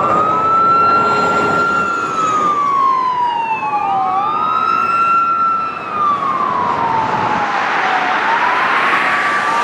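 Police car sirens wailing, the pitch rising and falling slowly about every four seconds, with a second siren overlapping about four seconds in. Under them is the rush of fast freeway traffic, which grows louder near the end as the patrol cars pass.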